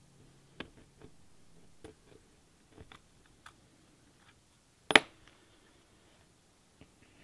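Small metal clicks and clinks as a tiny screwdriver works a tiny screw in the metal tube of a disassembled Crosman 761XL air gun, with one sharp, much louder click about five seconds in.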